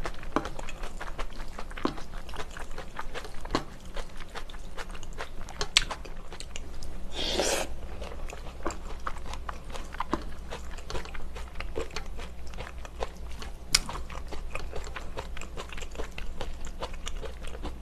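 Close-up chewing of a mouthful of spicy stir-fried octopus with rice, with many small wet clicks throughout. A longer rushing sound comes about seven seconds in, and a single sharp click near the fourteen-second mark.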